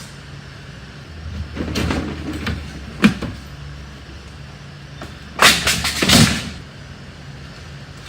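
Household junk and debris being thrown and dropped into a truck: clattering crashes about two seconds in, a sharp bang about three seconds in, and a longer clattering crash around five to six seconds, over a steady low hum.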